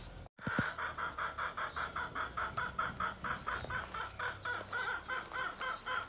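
Chicken clucking in a quick, even series of short clucks, about four or five a second.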